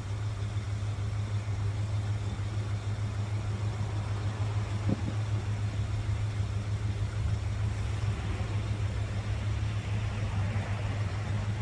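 Plymouth Volare's engine idling steadily, warming up after a cold start. There is one brief knock about five seconds in.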